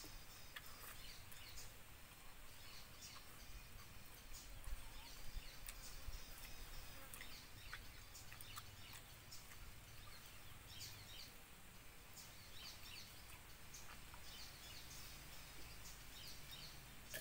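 Faint outdoor background of small birds chirping over and over, with chickens clucking now and then and a few light clicks.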